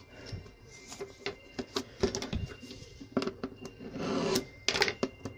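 Fingers and scissors picking at the plastic wrapping on a metal tin, making scattered small clicks and scratches, with a longer rustle about four seconds in.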